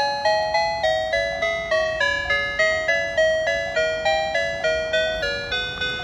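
Background music: a chiming, bell-like melody of single notes, about three a second, each note struck and then fading.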